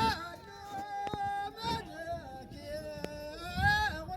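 Background music: a singing voice holding long, ornamented notes that bend and waver at their ends, with a couple of sharp clicks.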